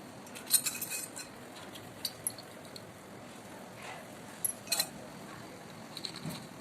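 Light clinks of a small spoon against a miniature cooking pot, in a few scattered clusters, as spice powder is stirred into the gravy.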